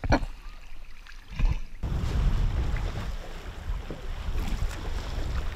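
Wind on the microphone and sea water sloshing around a boat, heard as a steady low rumble that comes in sharply a little under two seconds in. There is a single knock at the very start.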